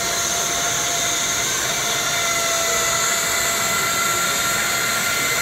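Large bandsaw resawing a thick, wide board on edge against a resaw fence: a steady noise of the running saw and blade cutting, with a faint steady whine over it.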